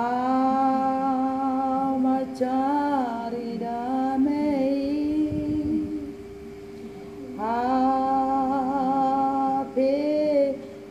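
An older woman singing unaccompanied in Batak, holding long drawn-out notes, with a softer stretch in the middle before she sings out again. A faint steady hum runs under her voice.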